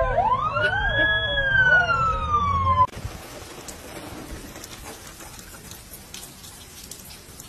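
An emergency-vehicle siren wails, rising and then slowly falling in pitch, with a lower wavering tone beneath it, and cuts off suddenly about three seconds in. A quieter steady hiss of rain with scattered light ticks follows.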